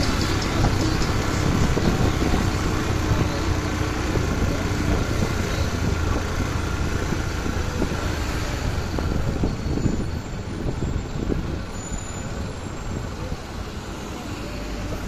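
Motorcycle ridden along a road: the engine running under steady wind and road noise, a little quieter over the last few seconds.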